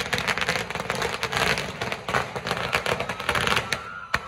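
A string of firecrackers on the ground going off in a rapid, dense crackle of pops. The crackle thins out near the end, with one last sharp pop.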